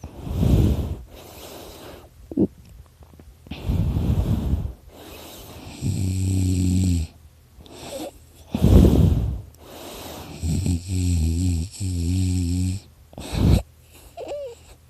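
A sleeping person snoring: a string of breaths every two to three seconds, some rough and noisy, others a low buzzing drone, with a faint high whistle through the nose. The snorer puts the snoring down to extra tissue in his throat.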